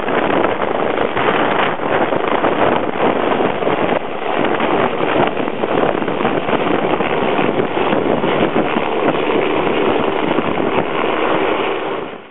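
Eurocopter EC145 rescue helicopter's rotors and twin turbines making a loud, steady din as it hovers close by and flies off, fading out at the very end.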